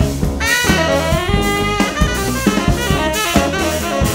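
Funk band playing live: a tenor saxophone plays a line with bending notes over a drum kit and a deep bass line.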